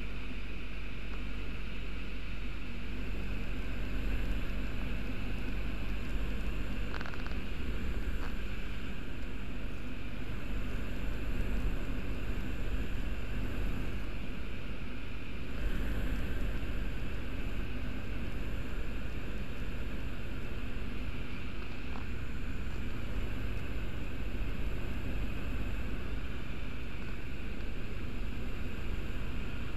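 Steady drone of a microlight's engine and propeller in cruise flight, with airflow noise, heard from inside the cockpit.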